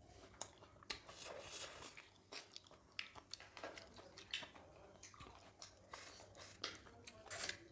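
Close-miked chewing and lip-smacking of people eating with their hands: a run of short, wet clicks and smacks, with a louder burst of mouth noise near the end.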